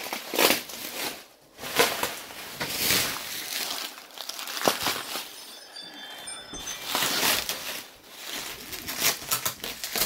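Bubble wrap crinkling and rustling in uneven bursts as it is pulled off a refrigerator.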